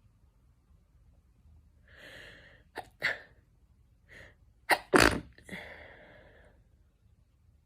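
A young woman sneezing twice in a row, each sneeze a sharp burst after a breathy intake. The second sneeze, about two seconds after the first, is the louder, and a breathy exhale trails off after it.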